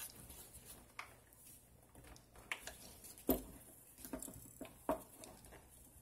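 Scattered small clicks and taps of nuts and washers being hand-tightened onto bolts in a PVC pipe frame, with a sharper knock about three seconds in.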